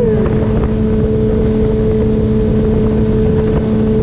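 Outboard motor of a small fishing boat running at a steady speed, a constant hum over low rumbling noise.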